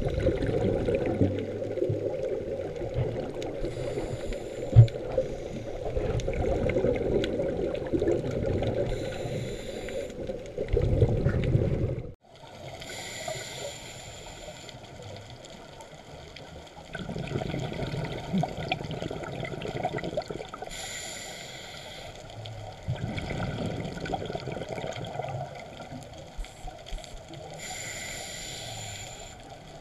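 Underwater sound heard through a camera housing: a muffled steady wash of water, broken every five to eight seconds by a short hissing rush of a scuba diver's exhaled regulator bubbles. The sound cuts off abruptly about twelve seconds in and resumes quieter.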